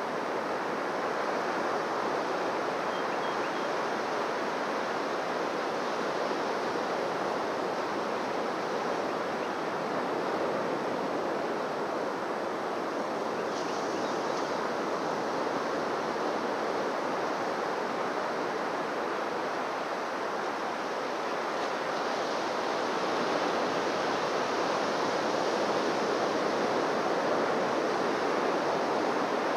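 Waves washing onto a beach: a steady rush of surf that swells a little louder about two thirds of the way through.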